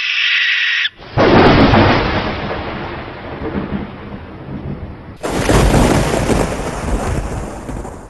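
A harsh, hissing screech, as of a barn owl, cuts off about a second in. Then comes a sudden thunderclap whose rumble fades over about four seconds, and a second thunderclap at about five seconds that rumbles on.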